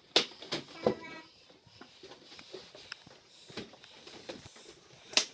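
Hollow plastic panels knocking and clicking against each other as they are fitted together: a string of scattered sharp knocks, the loudest just after the start, about a second in and near the end.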